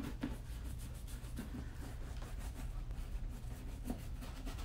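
Horsehair dauber rubbing stain wax into a leather boot: quiet, quick repeated brushing strokes over a steady low hum.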